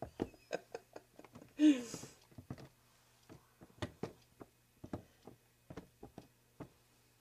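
Scattered light taps and clicks at an irregular pace, with one short breathy sound with a falling tone nearly two seconds in.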